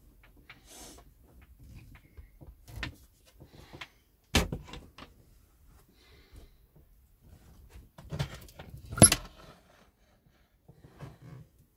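Wooden caravan cupboard doors and catches being opened and shut by hand: a few sharp knocks, the loudest about four seconds in and again about nine seconds in, with small clicks and handling noise between.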